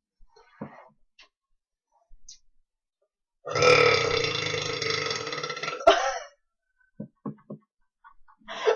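A girl's long, loud burp lasting about three seconds, starting about three and a half seconds in.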